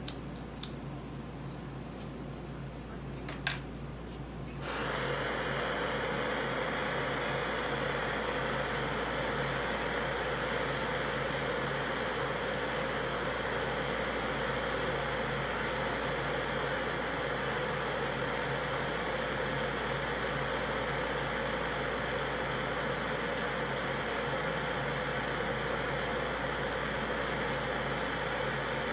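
A few sharp clicks from a hand lighter at the head of a propane torch. About five seconds in, the torch catches and its flame hisses steadily as it heats the nail of a bong for a dab.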